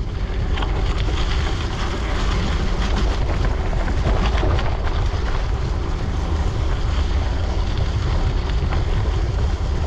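Wind rushing over the microphone of a bike-mounted or handheld camera while cycling, a steady low rumble, with the hiss of bicycle tyres rolling on the road surface.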